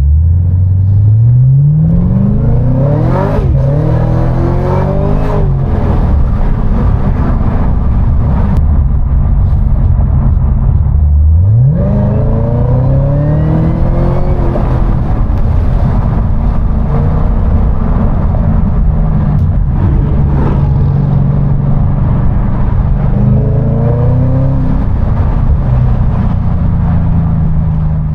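2016 Cadillac CTS-V's supercharged V8 on a drive, pulling hard several times with the engine pitch climbing steeply on each pull and steadier cruising between. Supercharger whine, made louder by a Roto-Fab cold air intake, rides over the engine note.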